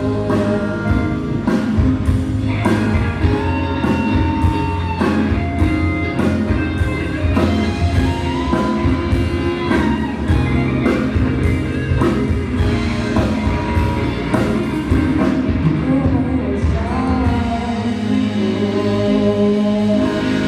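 Rock-style song with a steady drum beat, guitar and a sung melody line.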